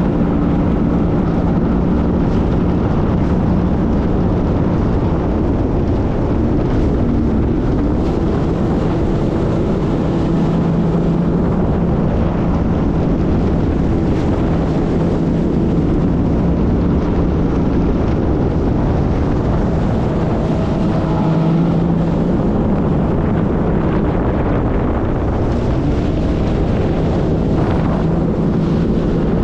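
Jet ski engine running steadily under way, its pitch rising and falling a little, with heavy wind noise on the microphone.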